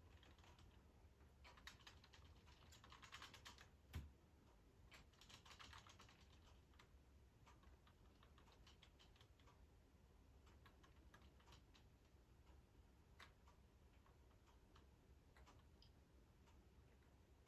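Faint, rapid plastic clicking and rattling from a running K'nex Loop-O-Plane ride model, with one sharper knock about four seconds in. The clicking comes in dense runs at first and thins to scattered single clicks after about seven seconds.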